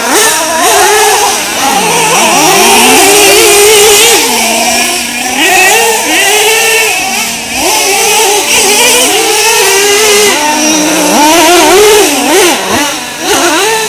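Small two-stroke nitro glow engines of 1/8-scale RC trucks racing, a high buzzing pitch rising and falling every second or so as the throttle is blipped through turns and jumps.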